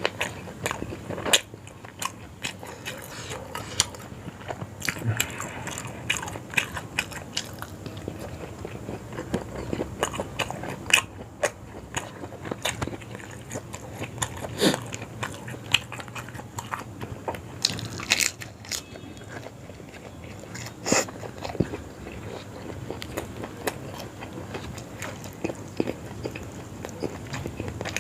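Close-miked eating of yong tau foo: biting and chewing, with many irregular sharp clicks and taps.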